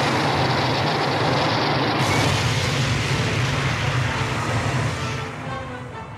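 Sound effect of Godzilla's atomic breath firing: a sustained rushing blast with a deep rumble underneath, fading away about five seconds in.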